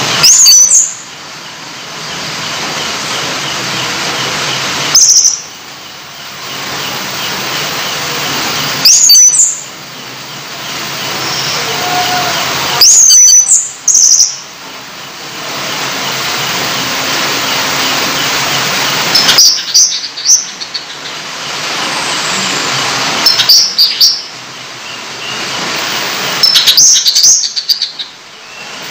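A caged songbird giving about seven loud, short bursts of rapid high notes at irregular intervals, over the steady hiss of running tap water played to it as 'therapy'.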